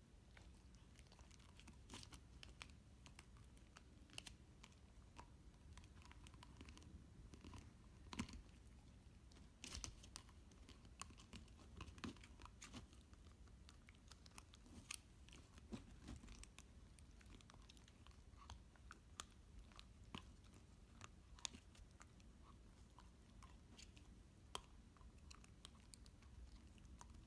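Beagle puppy chewing a hollow plastic whiffle ball, his teeth cracking and crunching the plastic in soft, irregular clicks, some sharper than others, as the ball is shredded into pieces.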